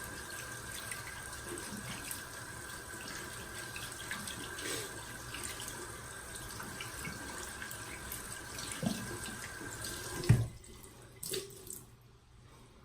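Sink faucet running steadily, then shut off about ten seconds in with a knock; a few light clicks follow.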